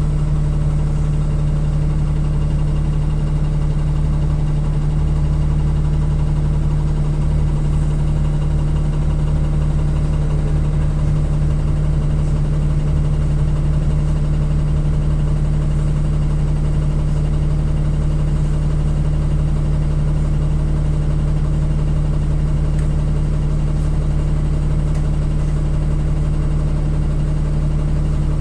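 NefAZ-5299 city bus engine idling steadily while the bus stands still, a low even hum heard from inside the cabin.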